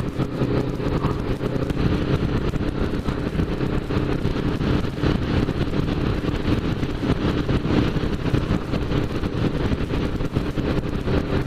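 Motorcycle engine running steadily at cruising speed, heard from on board with wind and road noise.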